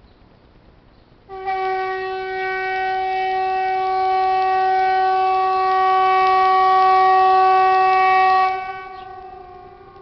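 A loud, steady, trumpet-like blare on a single held pitch with many overtones, the uploader's "strange sound in the sky". It starts suddenly about a second in, holds for about seven seconds, then drops to a fainter tone that carries on.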